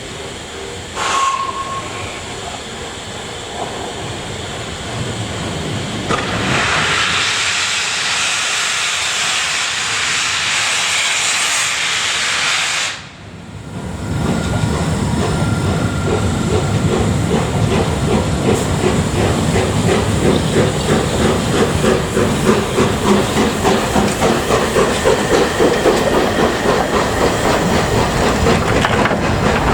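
Three-cylinder LNER Peppercorn A1 Pacific steam locomotive 60163 Tornado starting away: a short whistle about a second in, then a loud hiss of escaping steam for several seconds. Once it gets going, its exhaust beats set in as a steady, quickening chuff.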